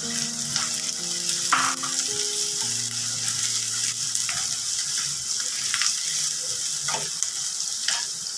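Chopped onions sizzling in hot oil in a kadhai, stirred with a wooden spatula that scrapes the pan a few times.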